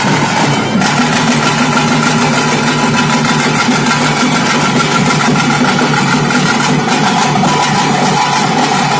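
Loud traditional temple festival band: rapid drumming with sustained wind-instrument tones held over it.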